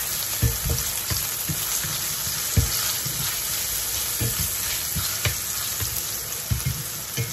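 Sliced mushrooms frying in butter and oil, sizzling steadily, while a wooden spatula stirs them and knocks softly against the pan every second or so.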